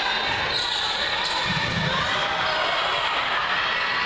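Indoor volleyball rally in a gym: the ball is struck sharply twice, about half a second and a second in, over players' calls and crowd noise.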